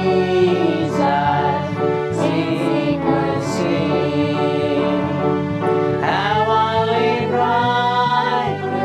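A congregation singing a worship hymn, led by a woman's voice, over instrumental accompaniment with a bass line that steps from note to note; long held sung notes.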